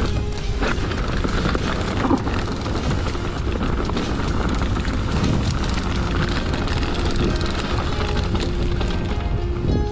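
Mountain bike rolling fast down a rough dirt trail: wind rumbling on the camera's microphone over the rattle and clatter of the bike and tyres on roots and stones.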